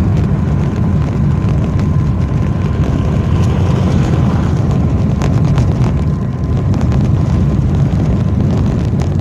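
Car cabin noise while driving over a stone-paved street: a steady low rumble from the tyres on the stones, with scattered small rattles and knocks.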